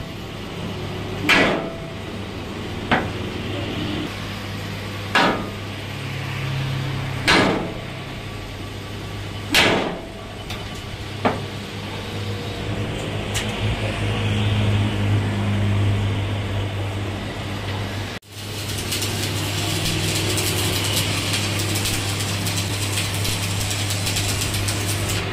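Six hammer blows on a truck rear axle housing clamped in a lathe, a second or two apart, over a steady low hum. About 18 seconds in this gives way to the steady crackle and hiss of stick arc welding on the axle spindle.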